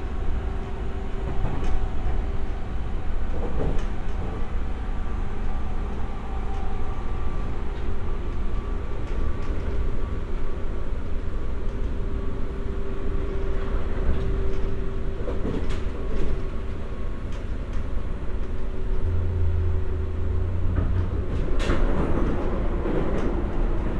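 Running noise of a JR 201 series electric train heard from inside the car: a steady rumble of wheels on rail with a steady motor hum over it. A sharp knock comes about 21 seconds in.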